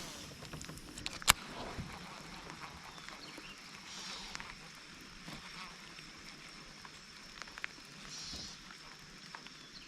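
Quiet outdoor ambience with a steady faint high-pitched hum, one sharp click a little over a second in, and a few small clicks and soft rustles from handling gear.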